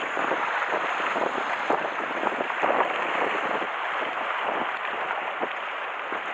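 Sea water washing and splashing against a rocky shore: a steady rush with many small splashes.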